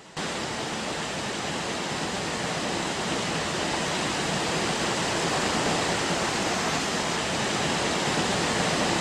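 Small waterfall spilling over a stone weir: a steady rush of water that cuts in suddenly right at the start and holds on unbroken.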